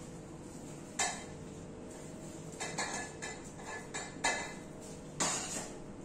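A few sharp clinks and knocks of metal kitchenware, about one a second, with the loudest near the end, over a faint steady hum.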